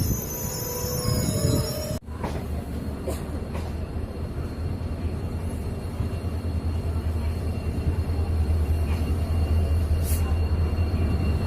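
Indian Railways train running on the track: a steady low rumble with a few faint clicks. The sound breaks off abruptly about two seconds in and picks up again as a similar steady rumble.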